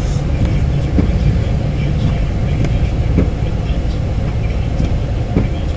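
Blizzard wind rumbling and buffeting against the microphone, steady and loud, with a faint low hum underneath and a few faint ticks.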